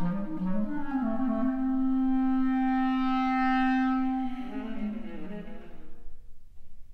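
Clarinet and viola playing contemporary classical chamber music. Quick running notes give way about a second and a half in to one long held note lasting nearly three seconds, which then breaks into quieter notes that fade near the end.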